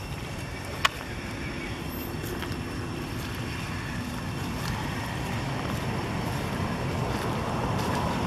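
Low engine rumble of a motor vehicle drawing nearer, growing steadily louder, with one sharp click about a second in.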